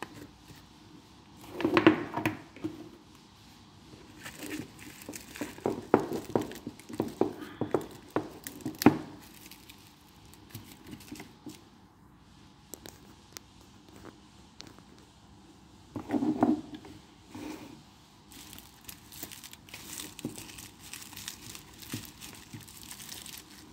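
Hands unpacking a boxed wristwatch: cardboard gift boxes knocked and slid against each other in several short bursts, and clear plastic wrapping crinkled, most finely near the end.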